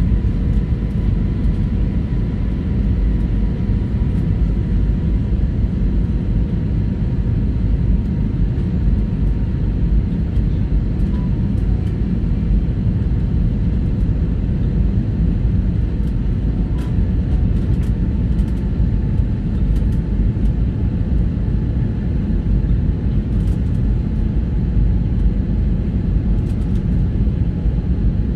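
Steady cabin noise of a jet airliner in flight: a deep, even rumble of engines and rushing air, with a faint steady high hum over it.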